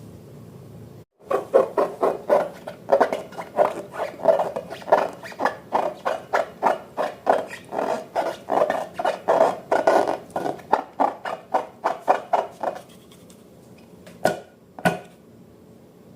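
Slime being mixed in a rhythmic run of wet strokes, about three a second, that stops a few seconds before the end. Two short sharp knocks follow.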